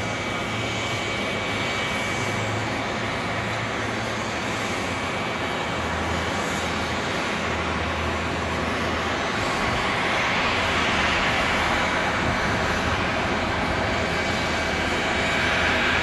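Jet engines of a Boeing 767-300 freighter on its landing rollout: a steady jet roar that grows somewhat louder in the second half.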